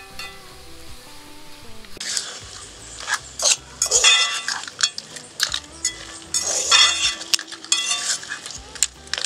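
A spoon stirring and scraping curried crab and vegetables in a frying metal pan, with sizzling and clinks of the spoon against the pan. The scraping starts about two seconds in and comes in repeated strokes. Soft background music with held notes plays throughout and is alone for the first two seconds.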